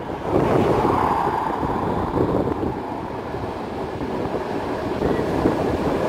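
Wind buffeting the microphone over street noise, with an electric tram approaching on its rails and passing close near the end.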